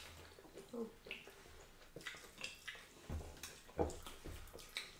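Soft, wet eating sounds of fufu and okra soup being handled and chewed, with scattered small clicks and knocks of bowls.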